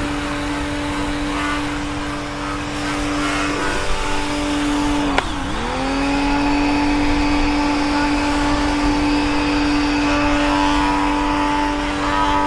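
Karcher K1 electric pressure washer running: a steady motor-and-pump hum over the hiss of the spray. About five seconds in, the hum dips sharply in pitch and comes back up.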